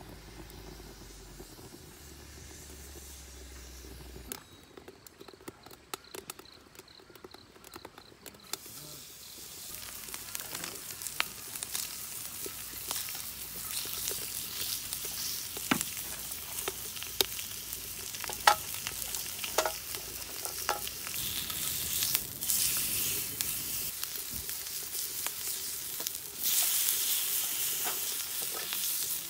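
Slices of pork belly sizzling in a frying pan over a wood-fired rocket stove, with scattered pops and clicks. The sizzle sets in about a third of the way through and grows louder, strongest near the end.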